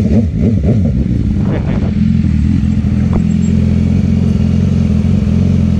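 Vehicle engine running at a steady speed, a constant low engine note, with a single short tick about three seconds in.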